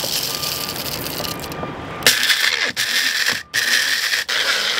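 Whole coffee beans rattling in the cup of a small electric blender. About two seconds in, the blender's motor starts grinding the beans with a loud, steady high-pitched whirr, cutting out briefly twice as it is pulsed.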